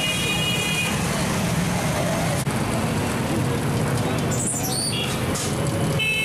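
Heavy road traffic: motorcycle and truck engines running steadily, with people's voices mixed in. A vehicle horn sounds during the first second and again briefly near the end.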